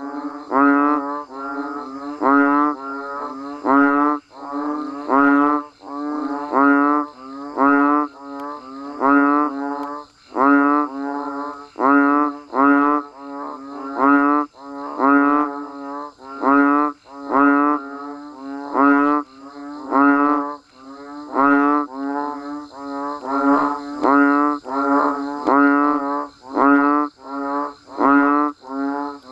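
Banded bullfrogs calling: low, resonant bellowing calls repeated about once a second and overlapping one another, over a steady faint high hum.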